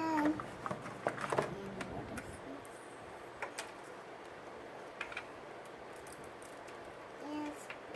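Scattered light clicks and taps of plastic Play-Doh toys and tubs being handled, busiest in the first couple of seconds, with a brief child's vocal sound near the end.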